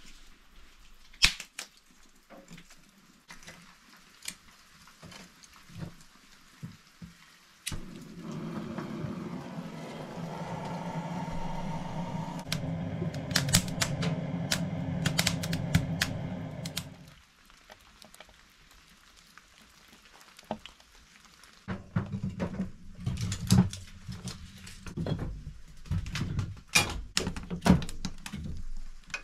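Handheld gas torch running with a steady hiss for about nine seconds while it lights kindling in a cast iron wood stove. Before it come a few sharp knocks of kindling and the stove's iron door; after it comes a run of clicks and knocks.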